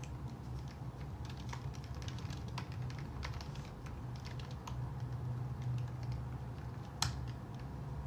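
Typing on a computer keyboard: irregular key clicks, with one louder click about seven seconds in, over a steady low hum.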